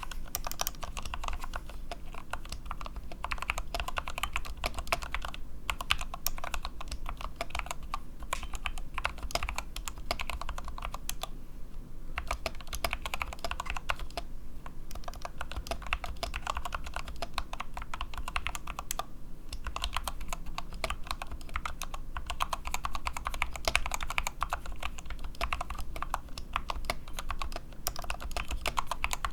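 Fast continuous typing on a mechanical keyboard with lubed Gateron Optical Brown tactile switches and DSA PBT keycaps, the keyboard resting on a 3 mm mousepad. Dense key clicks with a few brief pauses.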